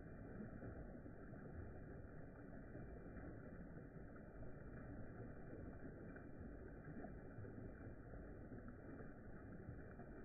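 Faint, steady low rumble of outdoor background noise, with no distinct events.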